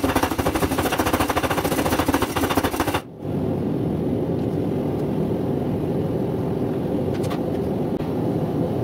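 Homemade wooden-frame power hammer running, its ram striking in a rapid, even run of blows that stops abruptly about three seconds in. A steady low rushing noise follows, with a single light clink near the end.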